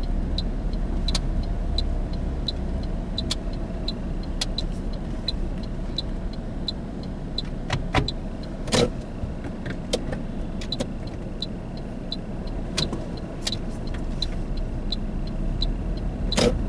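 A car's turn-signal indicator ticking evenly, about three ticks a second, over the low steady hum of the car driving slowly, heard from inside the cabin. A few sharper knocks come around 8 and 9 seconds in and again near the end.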